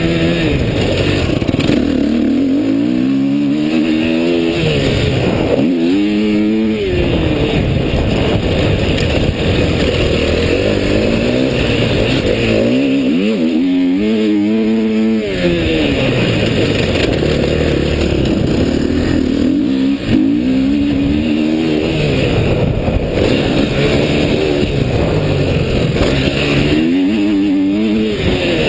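Dirt bike engine under hard riding, its pitch rising again and again as the throttle is opened, and dropping off between, over a constant rush of engine and wind noise.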